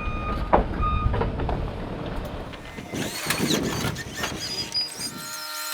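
An engine running steadily under load with scattered knocks and a few high squeaks as an old Gehl skid steer is shoved along. The low rumble cuts off abruptly near the end.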